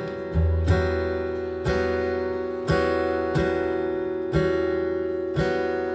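Baritone guitar strumming a chord about once a second, each stroke ringing out and fading over a steady low bass note.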